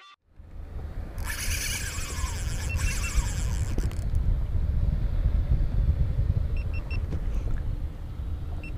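Wind buffeting an action camera's microphone on a boat, a low uneven rumble. For the first few seconds it comes with rattling and scraping from the camera mount being handled.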